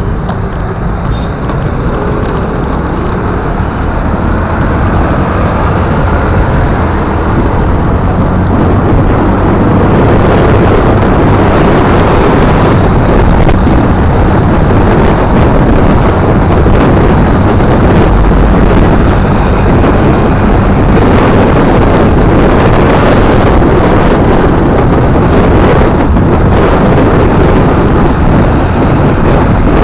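Wind buffeting the microphone of a moving motorcycle over its engine and road noise, a loud, dense rush that grows louder over the first ten seconds or so and then holds steady.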